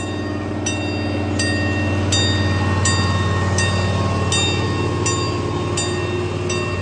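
Miniature ride-on train running past on its small-gauge track: a steady low hum from the locomotive with regular clicks about every 0.7 s from the wheels crossing the rail joints, growing louder as it comes closest, then easing off slightly.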